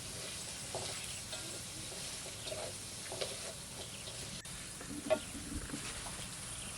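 Food sizzling in a frying pan while being stirred, with scattered spatula scrapes and clinks; one sharper clink about five seconds in.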